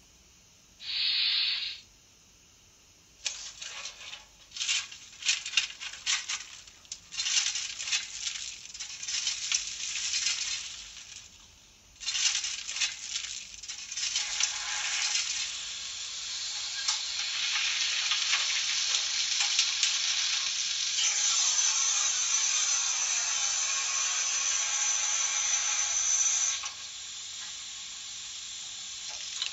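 Märklin H0 BR 94 model locomotive's digital sound effects, played through its small speaker while it stands still. A short hiss comes about a second in, then a run of uneven short bursts of noise, then from about twelve seconds a long steady hiss. Near the end a thin high tone joins the hiss before it cuts off.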